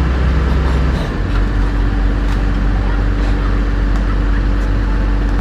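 Cat 320C excavator's diesel engine running steadily, its note changing about a second in as the load on the machine shifts.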